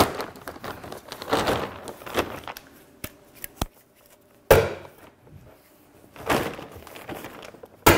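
Plastic sheeting crinkling and rustling as it is pulled over a plywood box. There are a few sharp clicks around three seconds in and one loud sharp strike about a second later, as a hand tool fastens the plastic down.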